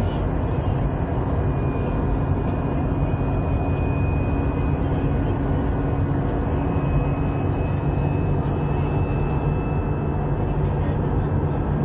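Steady engine and airflow noise inside a jet airliner's cabin in flight, with a low hum and a faint high whine.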